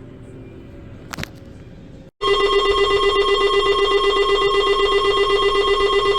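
Emergency alert attention tone: after a faint stretch with a single click and a brief dropout, a loud, rapidly pulsing multi-tone alert signal starts abruptly about two seconds in, with more tones joining near the end.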